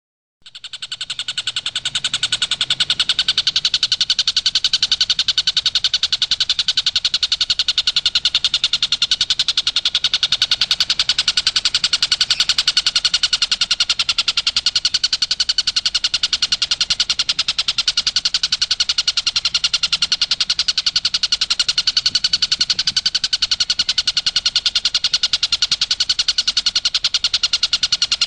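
Tengkek buto, a kingfisher, giving its 'tembakan' call: a long, fast, unbroken chatter of rapidly repeated high notes that starts about half a second in.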